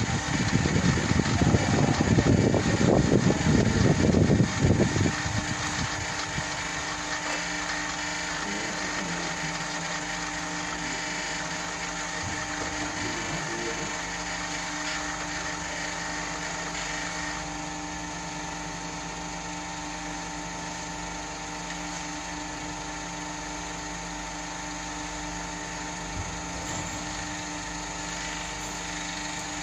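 Drum-type kitchen lift (dumbwaiter) hoist machine running, its electric drive humming steadily while the grooved drum turns and winds the steel hoist ropes on. A louder low rumble for the first five seconds or so settles into the steady hum.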